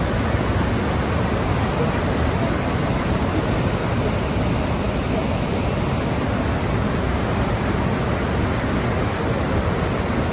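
Niagara Falls roaring: a steady, unbroken rush of heavy falling water.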